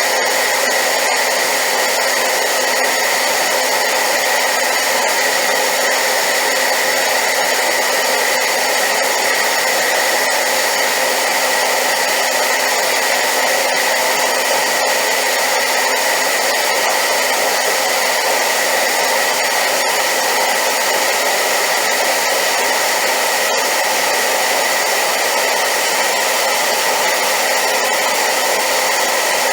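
Hair dryer running steadily on high power: a loud, constant rush of air with a steady high whine on one pitch.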